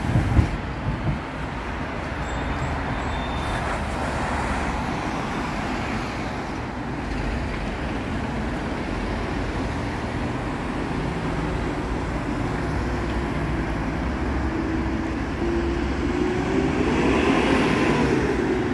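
Steady road traffic of cars and lorries, with a few sharp knocks in the first second as a Stadtbahn light-rail train runs over the track below. A louder wavering hum builds near the end.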